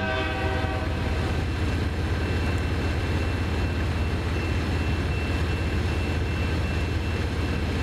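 Loram rail grinder working the rail at full power: a steady low rumble from its engines under an even grinding noise, with a thin steady high whine.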